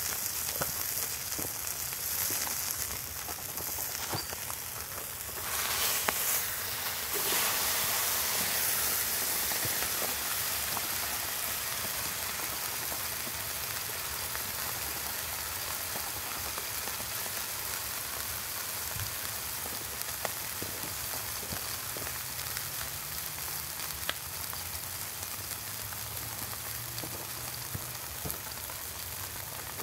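Burger frying in a small frying pan, sizzling steadily, with grease popping in scattered sharp crackles. The sizzle swells briefly louder about six seconds in.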